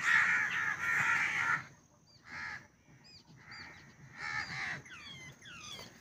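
Babblers giving harsh, rasping calls, loudest for the first second and a half, then in three shorter bursts, with a few thin rising chirps between them.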